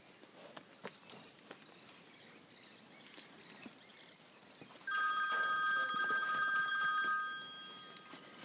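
A telephone rings loudly for about three seconds, starting about five seconds in: a steady, fast-trilling electronic ring that fades away. Before it there are only faint scattered clicks and knocks.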